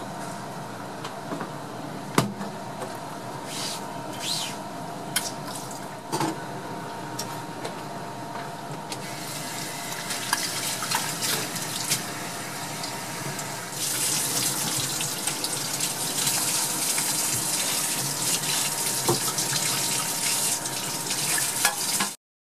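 Water splashing in a stainless-steel bowl as fish are washed by hand, with scattered clinks and knocks over a steady hum. The rush of running water gets louder about two-thirds of the way in, and the sound cuts off suddenly at the end.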